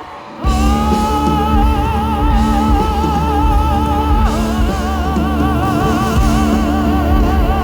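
Live concert music: long, high sung notes held with steady vibrato over a full band with a heavy bass, the held note moving to a new pitch about four seconds in.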